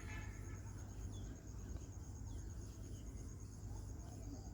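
Steady low rumble with a faint high pulsing tone and a few brief, faint chirps.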